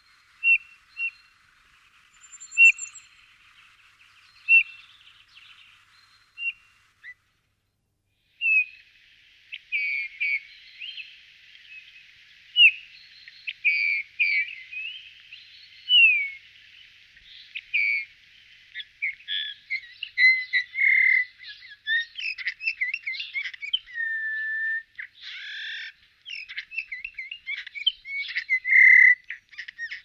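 Small songbirds calling: a few short, separate chirps at first, a brief pause, then many overlapping chirps and gliding call notes from several birds, growing busier toward the end.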